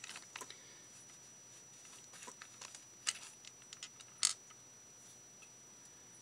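Scattered small clicks and taps of beads and a metal bead rod being handled among plastic bead boxes, with one sharper click a little past four seconds in.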